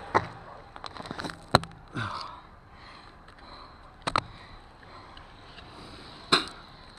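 A handful of sharp knocks and clicks scattered a second or two apart, four of them louder than the rest, over a low rustling background. There is a short breathy sound about two seconds in.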